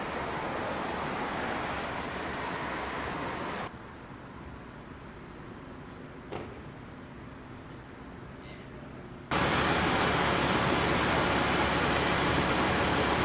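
Steady street noise, broken about four seconds in by a quieter stretch of crickets chirping in a fast, even pulse, then a louder steady noise from about nine seconds on.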